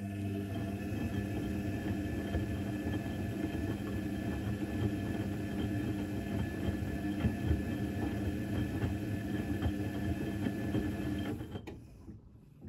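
Electrolux EWC1050 washing machine running on its cotton 90 °C programme: a steady motor hum with rough churning noise beneath it, which cuts off suddenly about a second before the end.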